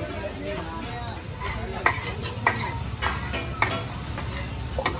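Metal spatula stirring and scraping meat on a large flat metal griddle while it sizzles, with sharp clacks of the spatula on the griddle coming roughly every half second from about two seconds in.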